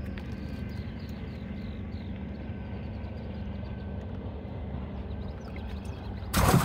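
Steady low rumble with a faint constant hum from a fishing boat on the water, and a run of faint high chirps about a second in. Near the end a sudden loud rush of noise cuts in.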